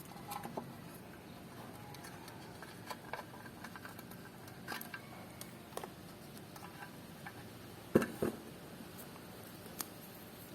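Scattered faint clicks and ticks, with a sharper double knock about eight seconds in.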